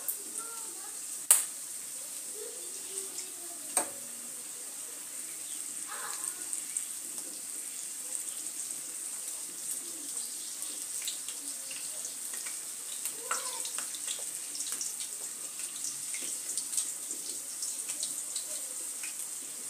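Sausages sizzling in hot cooking oil in a frying pan: a steady hiss with many small pops, and two sharp clicks of a fork against the pan in the first few seconds as the sausages are turned.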